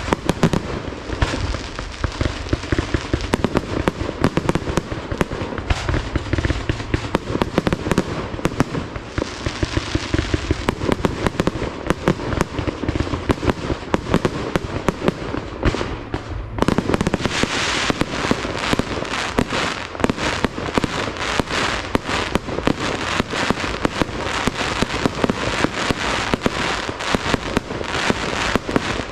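Fireworks display: a continuous rapid barrage of bangs and pops from bursting shells and launches. About 17 seconds in it turns suddenly denser and crisper, a thick crackling run of reports.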